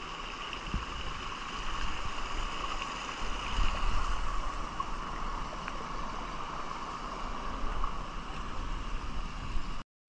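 Steady rush of falling water from a waterfall, an even hiss without pauses that cuts off suddenly just before the end.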